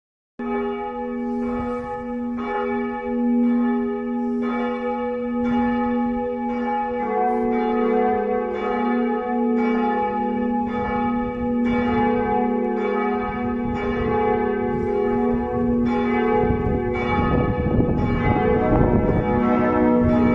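Full peal of church bells: several bells swinging and striking in overlapping, uneven strokes, about two strikes a second, each stroke ringing on. Another bell joins about seven seconds in, thickening the peal.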